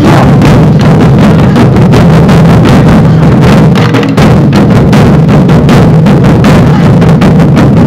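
A group of taiko drums beaten in continuous drumming, very loud, with no pause.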